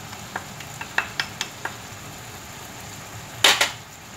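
Spatula clinking lightly against a small ceramic dish as salt is tipped over salmon in a frying pan, about six quick taps in the first two seconds, then a louder brief clatter about three and a half seconds in, over a steady low frying sizzle.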